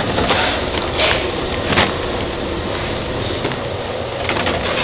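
Continuous band sealer running steadily as plastic snack bags are fed through its belts to be heat-sealed. A few short crackles of the plastic bags are heard in the first two seconds and again near the end.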